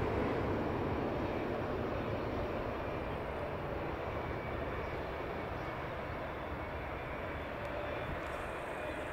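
Boeing 777-300ER's two GE90 turbofan engines at low approach power on final approach: a steady rushing jet noise with a faint whine.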